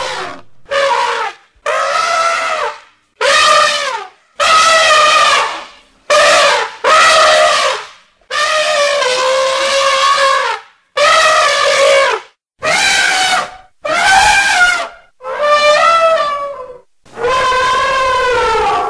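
Elephant trumpeting, about a dozen separate calls one after another, each a held, brassy note with a wavering pitch, separated by short gaps; one call in the middle is longer than the rest.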